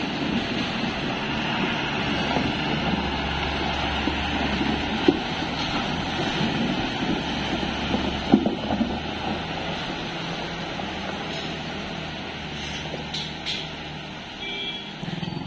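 Heavily loaded lorry's diesel engine running steadily at low speed as it crawls through muddy potholes, with two sharp knocks about five and eight seconds in. The sound fades a little near the end.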